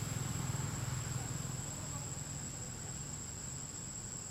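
Steady high-pitched insect drone, one unbroken tone like a cricket's, over a low rumble that eases after about a second.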